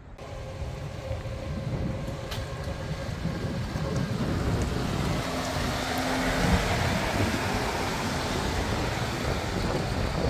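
1946 Chevrolet half-ton pickup's 235 Stovebolt inline-six running as the truck drives up close, growing louder over the first few seconds and then holding steady.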